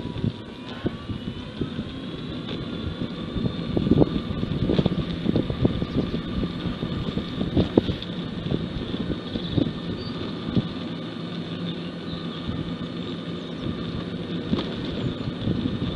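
Small ride-on vehicle moving along a road at speed: a steady motor whine that dips and rises slightly about a second in, with rattling knocks from the ride over the surface.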